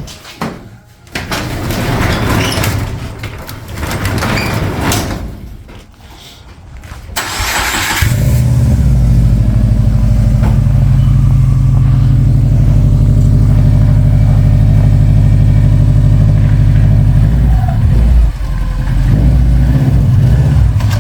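2008 Subaru WRX's turbocharged flat-four engine, just reinstalled after a clutch fork repair, comes in abruptly about eight seconds in and runs loud and steady, with a brief dip near the end. Before that there is irregular rustling and knocking noise.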